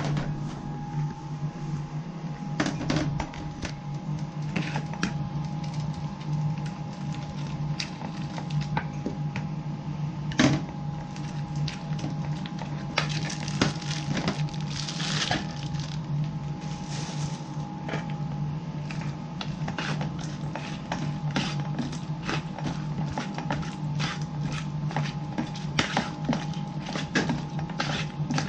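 Raw chicken pieces being stirred and squeezed by hand through batter in a plastic bowl: irregular wet knocks and clicks that come thicker in the second half. Under them is the steady hum of kitchen equipment.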